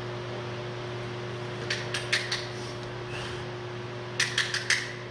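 Steady electrical hum of shop equipment, with a few sharp metallic clicks or taps about two seconds in and a quick cluster of about five near the end.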